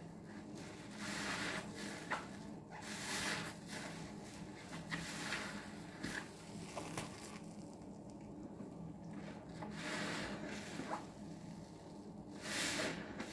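A soapy green kitchen sponge loaded with dish soap foam squeezed again and again by hand, each squeeze a wet squelch about a second long with small crackles of bursting bubbles in between.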